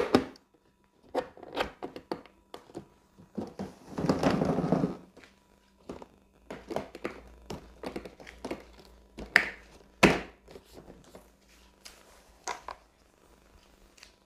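Plastic panels of a plastic locker cabinet being handled and snapped into the frame: a string of hollow knocks and clicks, the loudest right at the start and about ten seconds in, with a second-long rubbing rustle about four seconds in.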